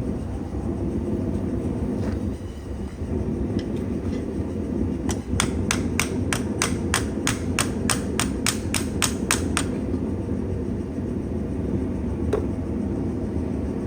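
A hammer striking hot steel on an anvil: a run of about sixteen quick, evenly spaced blows, roughly three a second, starting about five seconds in and lasting some four and a half seconds. A steady low rumble runs underneath.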